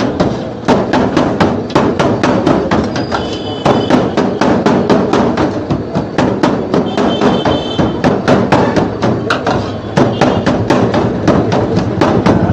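Chicken shawarma meat being chopped with rapid, steady strikes, about three to four a second, with a brief pause near the end.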